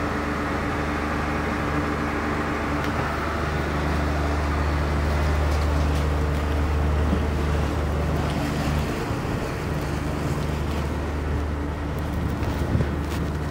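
A boat's inboard engine running steadily at idle, heard from inside the cabin as a low, even hum. The lowest part of the hum dips briefly about nine seconds in.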